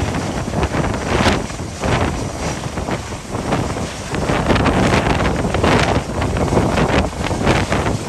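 Gale-force wind buffeting the microphone, a loud, continuous rush that surges unevenly in gusts.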